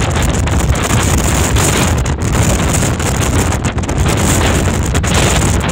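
Gale-force wind blowing across the microphone on a ship's open deck in rough seas, a loud, steady rush.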